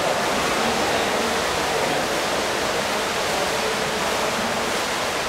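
Steady rushing noise of water being churned and splashed in a pool by water polo players.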